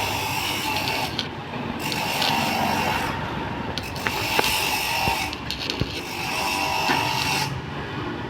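Stick (arc) welding crackling and sizzling in stretches of about one to two seconds, with short breaks between runs and a few sharp clicks.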